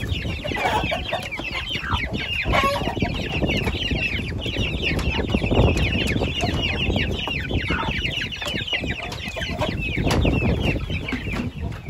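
A brood of young Indian game (Asil) chicks peeping continuously in rapid, short falling chirps. There are a few lower calls, likely from the mother hen, in the first few seconds, and low rustling and knocks underneath.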